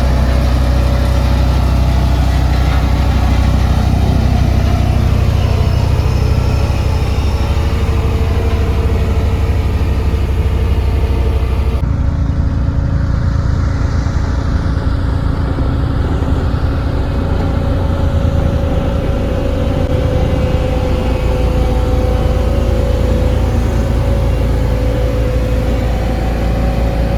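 Heavy diesel engine of a road roller running steadily with a deep drone. About twelve seconds in the sound changes abruptly, as another take of the working machine begins.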